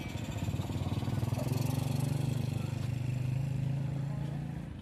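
Motorcycle engine running steadily and passing close by, its low hum dropping away just before the end.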